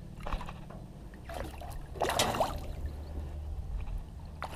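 Hooked smallmouth bass splashing and thrashing at the water's surface beside a boat as it is landed: a few short splashes, the loudest about two seconds in, over a steady low hum.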